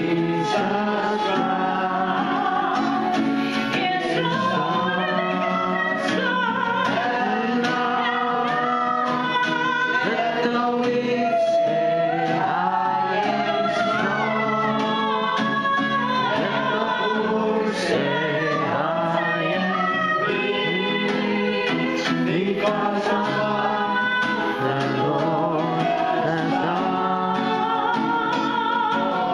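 A woman singing a gospel worship song, accompanied by a strummed acoustic guitar.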